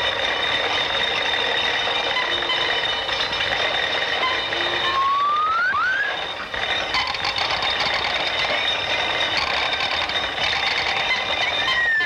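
Old film soundtrack of dense mechanical rattling and clattering sound effects over a steady high whine. About five seconds in, two quick whistle-like rising glides cut through it.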